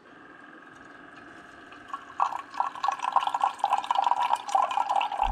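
Single-serve pod coffee maker dispensing a stream of coffee into a stainless steel tumbler. A faint steady hum comes first; from about two seconds in, an irregular gurgling and splashing of liquid fills the cup more loudly.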